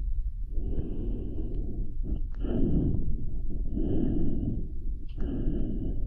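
A person breathing heavily and slowly close to the microphone, one long noisy breath about every one and a half seconds, performed as a dinosaur creature's breathing. A few sharp wet mouth clicks sit between the breaths.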